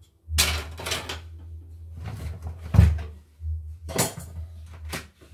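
Plastic housing and loose cover parts of a home embroidery machine handled on a wooden workbench: a series of knocks and rattles. The loudest is a thump about three seconds in as the machine is set down upright.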